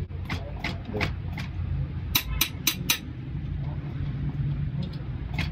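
Sharp clicks and taps of small metal diesel injector nozzle parts being handled, four of them close together about two seconds in, over a steady low background hum.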